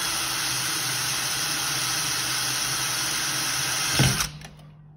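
Cordless drill running steadily as its bit pre-drills a hole in a steel storm door's top rail, a continuous hiss with a motor hum underneath. About four seconds in there is a short thump and the drilling stops.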